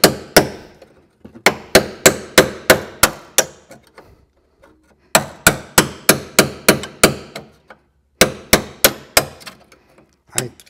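Hammer striking an all-metal chisel driven between spot-welded steel panels of an MGB floor to split the seam, in quick runs of sharp blows, about four or five a second, with short pauses between runs.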